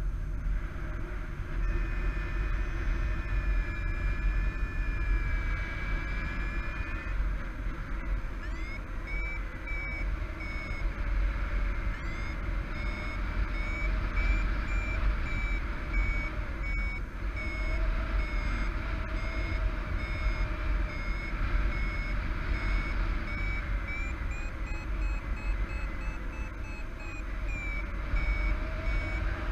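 Paragliding variometer beeping over loud wind rush on the microphone. A held tone for a few seconds gives way to regular short beeps, about one and a half a second, that step up in pitch for a few seconds near the end: the vario's climb signal while circling in a thermal.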